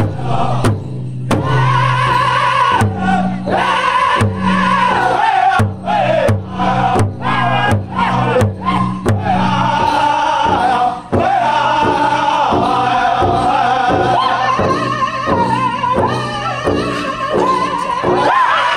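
A powwow drum group singing a men's chicken dance song in unison over a large shared drum, with the drumsticks striking together in an even beat.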